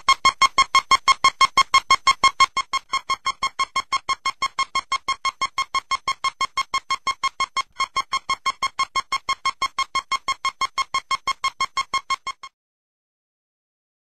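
Rapid electronic beeping at a single pitch, about four to five beeps a second. The beeping drops in loudness about two and a half seconds in and stops abruptly after about twelve seconds, leaving silence.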